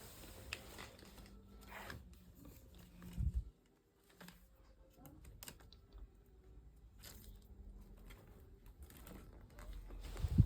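Faint scattered clicks and rustles, with a dull low thump about three seconds in and a louder one near the end.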